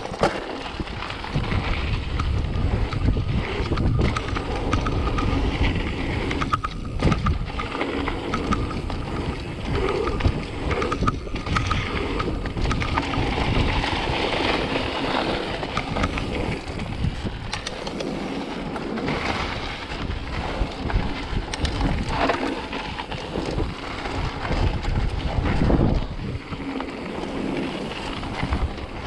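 Wind buffeting the microphone over the rumble and rattle of a mountain bike rolling fast down a dirt trail, with frequent knocks as it goes over bumps.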